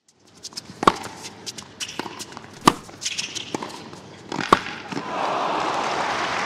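Tennis rally: three sharp racket strikes on the ball, about two seconds apart, with smaller clicks between them, then a crowd breaks into applause about five seconds in.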